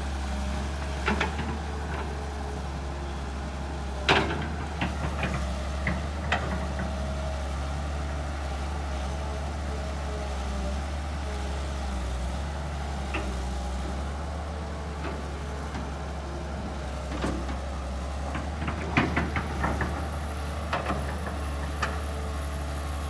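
Kobelco SK200 excavator's diesel engine running steadily, with scattered sharp knocks and cracks over it. The loudest knock comes about four seconds in, and a cluster comes near the end.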